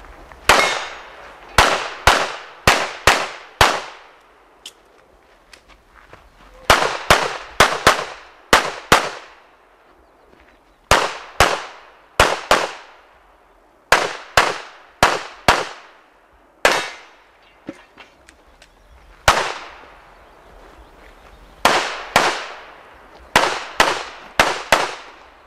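9mm pistol (S&W M&P9 Pro) firing during an IPSC stage: quick strings of two to five shots, about two a second, broken by pauses of one to three seconds while the shooter moves, with a couple of single shots. Each shot has a short echoing tail.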